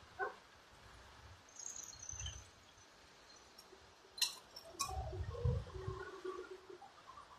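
A car driving over a railway level crossing: sharp clacks about four to five seconds in as its tyres hit the rails, then a short low rumble of the car as it goes past.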